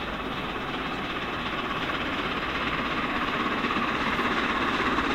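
Train hauled by the A1 Pacific steam locomotive 60163 Tornado approaching, a steady rumble on the rails that grows gradually louder.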